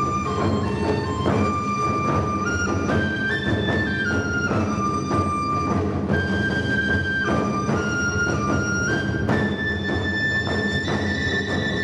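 Instrumental ensemble music: a melody of held notes moving step by step over a steady low accompaniment, with regular drum strokes underneath.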